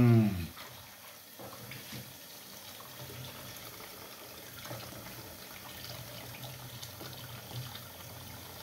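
Cold tap water running into a plastic colander of termites as they are rinsed in the sink. A man's voice is heard briefly at the very start.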